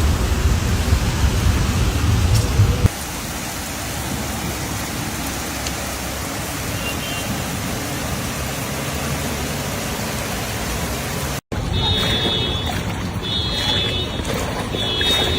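Steady rushing noise of heavy rain and running floodwater. In the last few seconds a high-pitched tone sounds on and off, about every second and a half.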